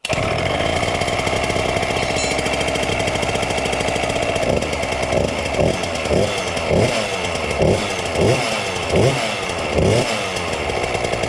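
KTM 50 SX mini dirt bike's small two-stroke single-cylinder engine running, steady at first, then from about four and a half seconds in revved in a string of about eight quick throttle blips, each rising and falling back.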